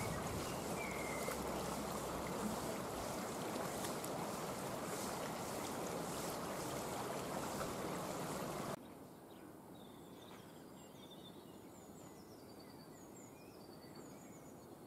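River water rushing steadily over a shallow riffle, cutting off abruptly about two-thirds of the way in. After that comes quieter open-air ambience with small birds chirping.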